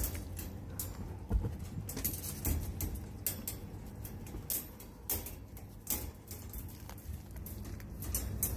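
A young buck goat moving about in hay bedding: scattered rustles and light, irregular clicks over a low steady hum.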